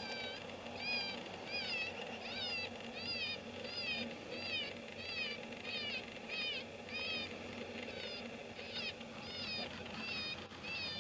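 FoxPro electronic predator caller playing a prey distress call: short, high squealing cries, each rising then falling in pitch, repeated evenly about one and a half times a second.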